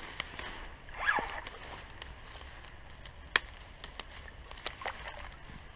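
Dry reed stems rustling and crackling as a landing net is pushed through them, with scattered sharp snaps, the loudest a little past halfway, and faint water sloshing.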